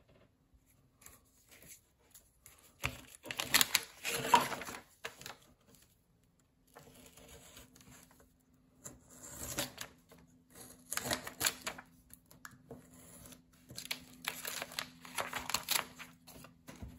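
Paper cutouts being handled, slid and patted flat on a drafting table: irregular spells of rustling and light tapping, with a faint low hum from about seven seconds in.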